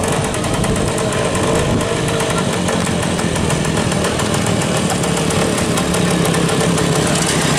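Small vintage single-cylinder motorcycle engine running steadily at low revs as the bike rides slowly past close by.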